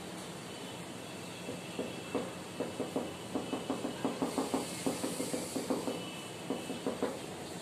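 Marker pen drawing on a whiteboard: a quick run of short strokes, about four or five a second, beginning about two seconds in and stopping near the end, over a steady background hiss.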